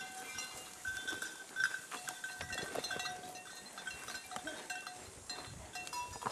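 A herd of goats browsing through brush, with many short, clear high tones that keep recurring at the same few pitches.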